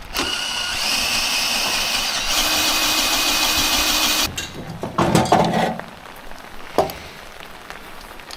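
Power drill motor running steadily for about four seconds, its note deepening as a lower tone joins about halfway, then stopping suddenly. A few clunks and knocks follow.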